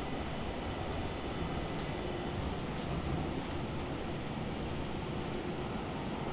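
Steady rumble and rush of a passenger rail car running along the track, heard from inside the car, with a faint steady tone under the noise.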